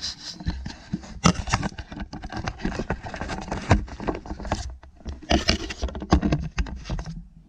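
Close handling noise: an irregular run of clicks, knocks and scrapes as small objects are picked up, shifted and set down on a hard surface. It stops abruptly near the end.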